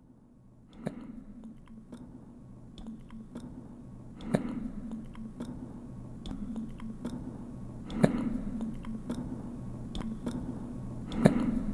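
A steady low hum with a sharp knock about every three and a half seconds, four in all, each followed by a short hiss, and faint scattered clicks throughout.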